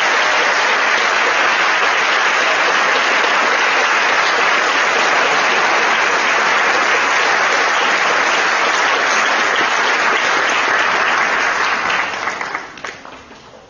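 Audience applauding steadily, then dying away near the end with a few last scattered claps.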